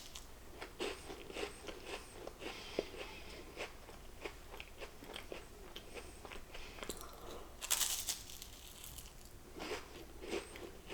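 Close-up crunching and chewing of crisp peanut butter wafer bars, with short sharp crackles of the wafer breaking and a louder burst of crunching about eight seconds in.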